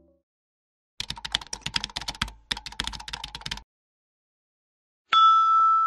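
Computer keyboard typing: a rapid, uneven run of clicks for about two and a half seconds with a brief break midway. About five seconds in, a single louder ding starts sharply and rings on.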